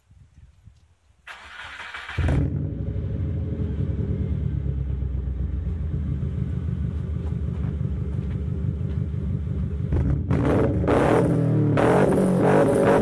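Subaru Impreza 2.0 GX's flat-four boxer engine is cranked by the starter and catches about two seconds in, then idles through an aftermarket stainless exhaust fed by an unequal-length manifold. It is revved up several times in the last few seconds.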